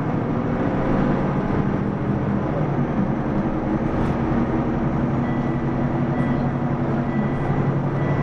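Mitsubishi Fuso PDG-AA273KAN city bus heard from inside the cabin while driving: a steady diesel engine and drivetrain hum with road noise.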